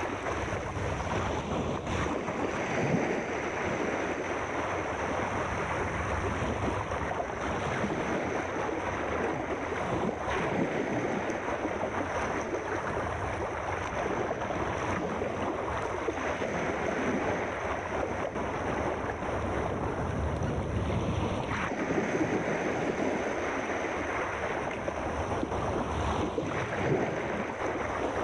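Sea surf: a steady wash of waves.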